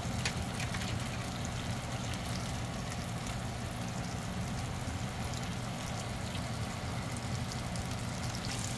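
Salmon fillets sizzling in melted butter in a frying pan: a steady hiss with scattered crackles, busiest in the first second, over a low steady hum.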